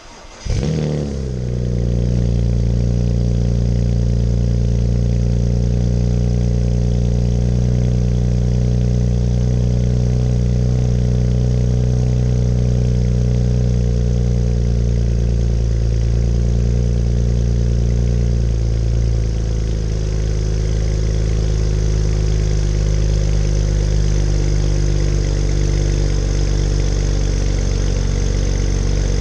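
BMW N54 twin-turbo inline-six in a 2008 335i with catless downpipes, secondary cat delete and stock mufflers, starting from cold: it fires and catches straight away, then holds a steady fast cold-start idle. About two-thirds of the way through, the idle speed steps down to a lower, steady idle.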